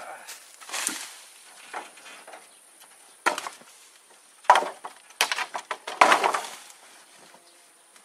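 Wooden junk and old boards being thrown around and landing in a wooden-sided tractor trailer: a series of separate wooden knocks and clatters, the loudest about four and a half seconds in, followed by a longer rattling clatter around six seconds in.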